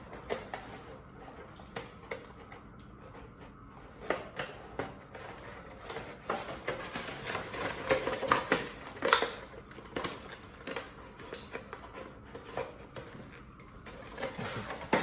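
Packaging of a new headset being opened and handled: scattered clicks, taps and rustles, busiest about seven to nine seconds in.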